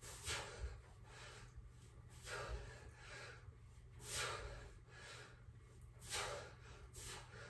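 A man breathing hard while doing push-ups, with a short, forceful breath about every two seconds.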